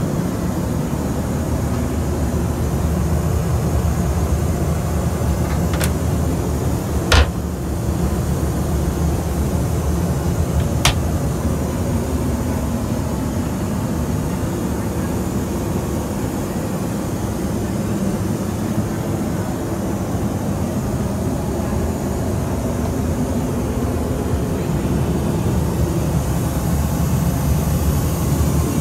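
Steady in-flight cabin noise of a Boeing 737-900ER, a low, even rumble of engines and airflow. Three sharp clicks break it about six, seven and eleven seconds in, the middle one loudest.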